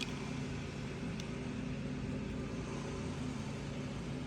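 Steady low mechanical hum from a motor running in the background, with a couple of faint clicks.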